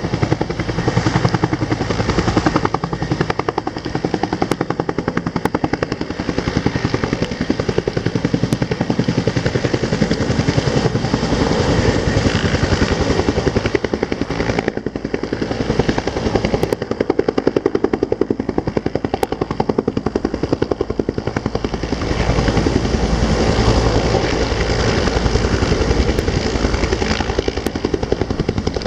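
Helicopter running close by, its rotor beating in a rapid, steady chop.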